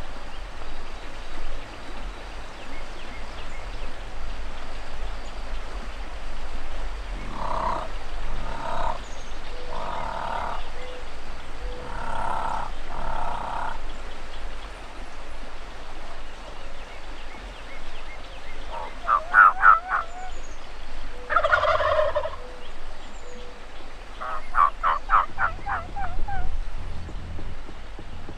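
Rio Grande wild turkey gobblers gobbling repeatedly: a run of calls about a quarter of the way in, then louder rattling gobbles past the middle.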